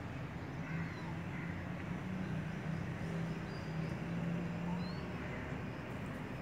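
Outdoor background: a steady low hum with a few faint, short bird chirps.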